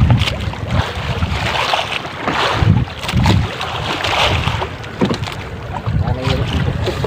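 Wind buffeting the microphone in irregular gusts, over sea water washing against a wooden outrigger boat on open water. Faint voices come in near the end.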